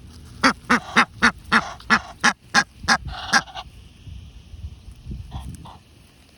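Egyptian goose honking: a quick run of about nine loud honks, roughly three a second, followed by one longer call, then a couple of fainter calls near the end.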